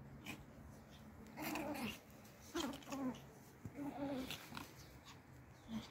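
Pomeranian puppies growling in play, in about four short bouts.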